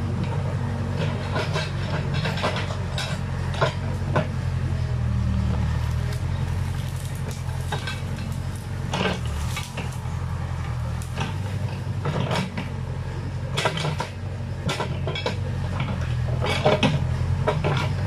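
Backhoe loader's diesel engine running steadily under load while its arm and bucket work through brush, with frequent sharp clanks and cracks scattered throughout.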